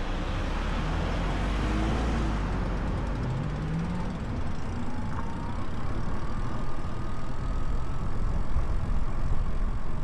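Wind buffeting the muffed microphone of an Insta360 X4 camera on a moving e-bike: a steady low rumble, heaviest in the first few seconds, over a hiss of air and road noise.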